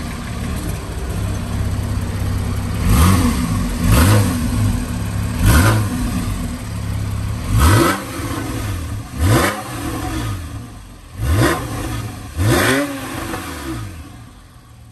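The 3.8-litre flat-six of a 2014 Porsche 911 Carrera 4S (991), heard at the rear exhaust, idling and blipped about seven times. Each blip is a quick rise and fall in pitch, and the engine note quietens near the end.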